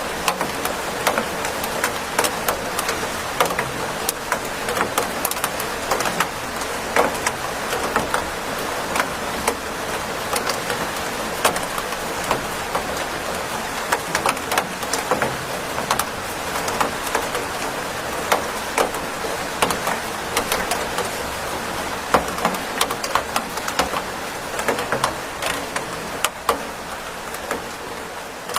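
Steady rain: a constant hiss with many sharp, separate drops striking a hard surface close by.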